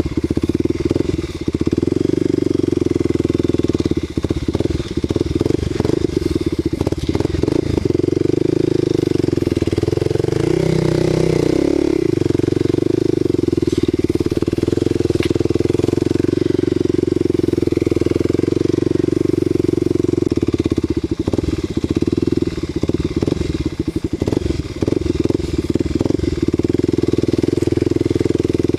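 Kawasaki KLX250SF's single-cylinder four-stroke engine running steadily as the bike rides a rough grassy trail, with scattered knocks from the ride. About ten seconds in, the engine note briefly changes pitch.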